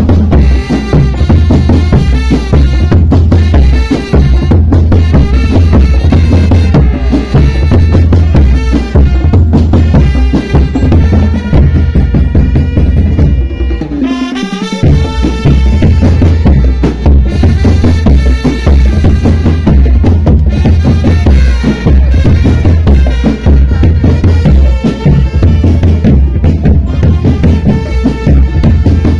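A drum band playing loud music: a steady, heavy drum beat under pitched melody lines. About halfway through, the beat drops out for a moment under a falling pitch slide, then comes back in.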